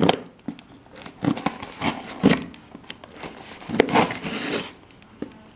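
Serrated kitchen knife sawing through packing tape and cardboard on a parcel: a run of uneven scraping and tearing strokes, dying down near the end.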